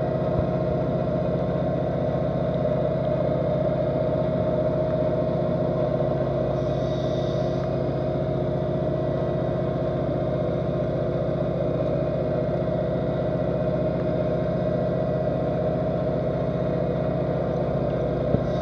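Steady drone of a boat or ship's engine and propeller carried through the water, with several steady tones in it. A short hiss about seven seconds in and a click near the end.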